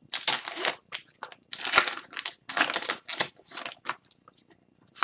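Foil hockey-card pack wrappers being handled and crumpled: several loud crinkling bursts in the first three and a half seconds, then a few faint rustles.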